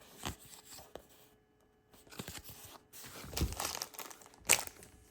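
Crinkling and rustling of a small plastic toy-pack wrapper and its paper stickers being handled, in short irregular crackles with a sharper one near the end.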